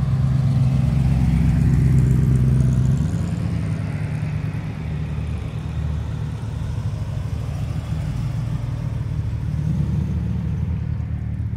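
Hot rod engines running low and deep as the cars roll slowly past one after another, loudest in the first three seconds as a roadster goes by, then a steadier, quieter engine sound with a small rise near the end.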